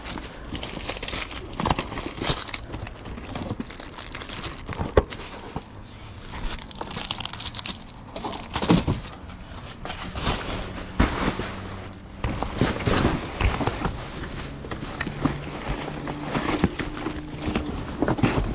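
Plastic packaging crinkling and rustling as gloved hands sort through plastic-wrapped craft supplies, with a few sharp knocks of items being moved.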